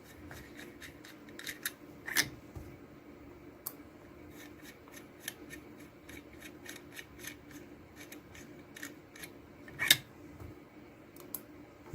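Ratchet wrench with a 17 mm socket clicking in quick irregular strokes as the solenoid valves are unscrewed from the boiler, with two louder knocks about two seconds and ten seconds in.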